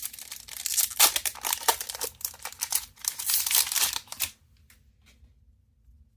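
Magic: The Gathering booster pack's foil wrapper being torn open and crinkled by hand. The crackling stops a little over four seconds in.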